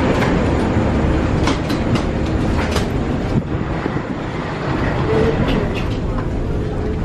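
Steady low rumble inside an airport jet bridge, with footsteps and a few sharp clicks and knocks from passengers walking through it.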